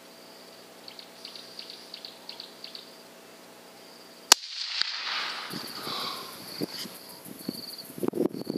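A single .243 rifle shot about four seconds in: one sharp crack, then about a second and a half of rolling echo that sinks in pitch. Faint insect chirping comes before it, and irregular clicking and rustling near the end.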